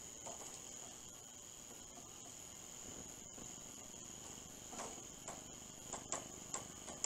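Benexmart AM43 blind driver motor running as it drives the Venetian blind's cord, with a faint, steady, high-pitched whine. A few light clicks come in the last couple of seconds.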